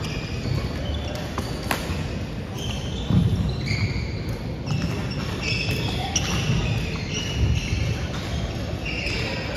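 Athletic shoes squeaking on a hardwood gym floor in many short high chirps, with a couple of sharp clicks about a second in and dull thuds of footfalls on the court.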